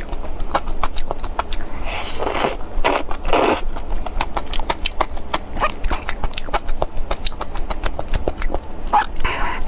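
Wet chewing and slurping of spicy, sauce-coated bacon-wrapped enoki mushrooms, with many quick smacking clicks and a few longer slurps, at about two and three and a half seconds and near the end.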